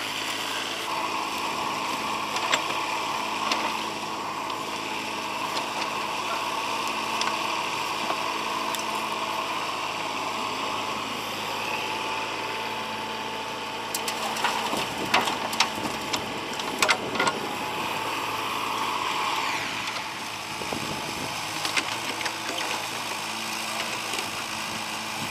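Mini excavator's engine running steadily as the machine digs, with several sharp knocks about fifteen seconds in.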